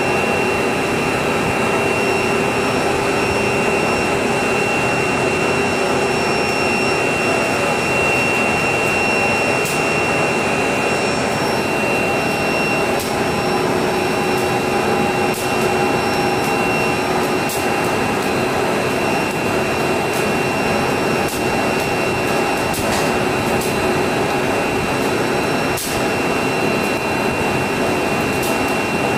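CPE cast film machine running, its winder winding film onto a roll: steady machine noise with a constant high whine and a few light clicks.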